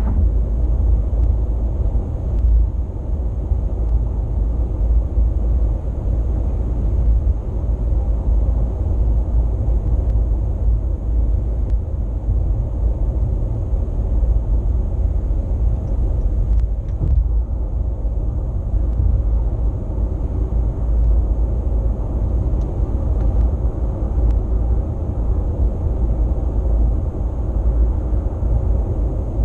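Steady road and engine rumble of a car driving, heard from inside the cabin through a dashcam microphone, with no sudden events.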